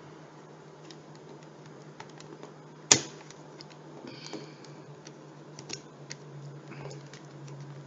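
Scattered clicks and taps of a laptop's plastic case and parts being handled and pried during keyboard removal, with one sharp, loud click about three seconds in, over a steady low hum.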